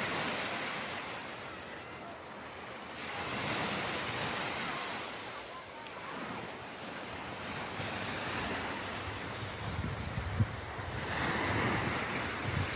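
Sea waves washing in and breaking, the rush of surf swelling and falling away in slow surges every few seconds. In the second half, low rumbling buffets of wind hit the microphone.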